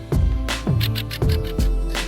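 Background music with a steady drum beat and a deep bass.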